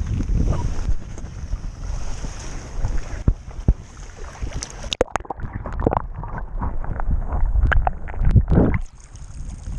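Wind buffeting a waterproof action camera's microphone, with waves lapping, while wading in shallow water. About halfway through, the camera goes under the water: the sound turns dull and muffled, with sloshing and scattered knocks, until it clears again near the end.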